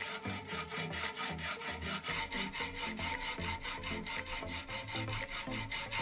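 Hacksaw cutting through a metal threaded rod clamped in a vise, in rapid, even back-and-forth strokes, about four or five a second.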